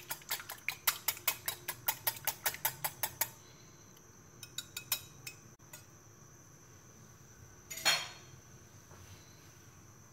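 Wire whisk beating eggs in a glass bowl: quick, even clinks of the whisk against the glass, several strokes a second, stopping a little over three seconds in. A single brief louder clatter follows about eight seconds in.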